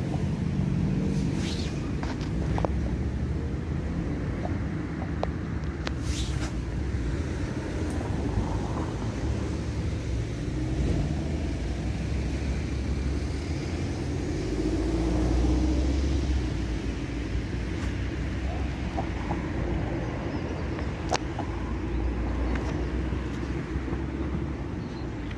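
Distant road traffic: a steady low rumble that swells about halfway through, with a few faint clicks.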